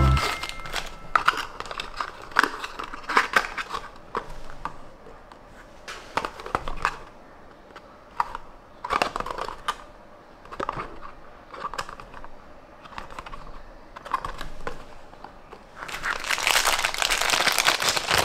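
Small cardboard toy-car box being handled and opened: scattered light taps and scrapes of thin card flaps and an inner tray. Near the end, a denser stretch of plastic-bag crinkling as the die-cast car is taken out of its clear plastic wrapper.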